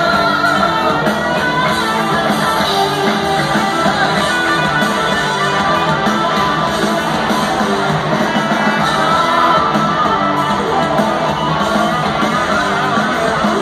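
Live rock band playing in an arena, guitars strumming over bass and drums, heard from the audience with the hall's echo.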